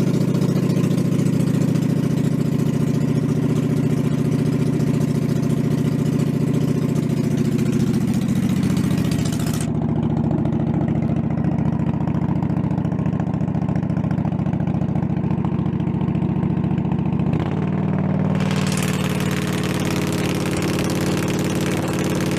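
Cub Cadet zero-turn mower's 24 hp Kawasaki V-twin engine running steadily and loud, through a muffler that has suddenly become noisy and is failing.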